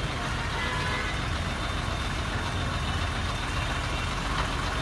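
Heavy vehicle engines running, with steady street noise.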